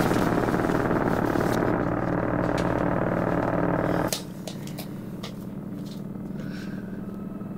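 A loud, steady mechanical rumble cuts off suddenly about four seconds in, leaving a quiet room with a low hum and a few light clicks.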